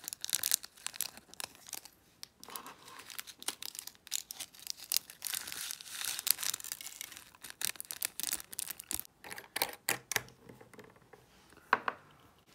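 Diamond painting drills poured from a small plastic bag into a glass jar: the bag crinkles and the drills rattle and tick against the glass in irregular runs. A sharp knock near the end.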